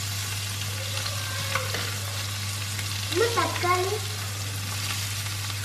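Chopped onions and green chillies sizzling in oil over low heat in a stainless steel kadai, stirred with a wooden spoon. A short voice is heard about three seconds in.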